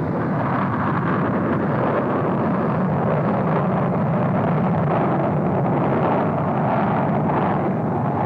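Twin jet engines of an F-14A Tomcat at full power during a catapult launch from an aircraft carrier deck: a steady, loud rush of jet noise that holds level throughout.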